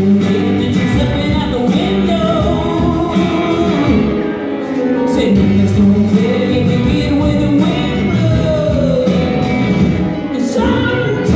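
Live rock band playing: a singer over guitars and bass, picked up by a phone's microphone from the crowd.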